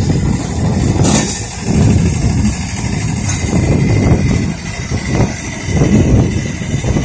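Train engine running with a loud, uneven low rumble.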